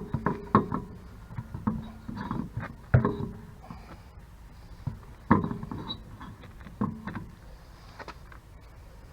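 Irregular metallic clanks and knocks with short ringing, typical of tools and brake parts being handled and set down during brake work; two heavier knocks about three seconds and five seconds in.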